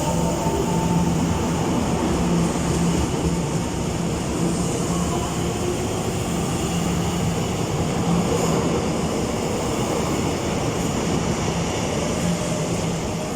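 Taiwan Railway EMU700 electric commuter train pulling out of the station: steady running noise of the motors and wheels on the rails, with a constant low hum under it.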